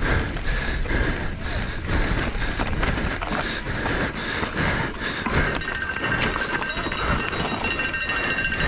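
Mountain bike descending a rough, rocky dirt trail at race pace: tyres crunching over dirt and stones and the bike rattling and knocking over roots and rocks, with wind on the microphone. A steady high whine comes in about halfway through.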